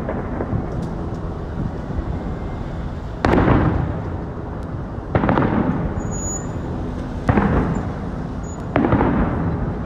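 Aerial firework shells bursting: four booms about two seconds apart, each rolling away in a long echo, over a steady low background rumble.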